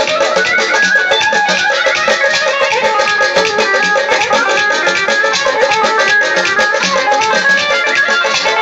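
Instrumental meykhana backing music with a steady beat and a melody line, playing between the verses.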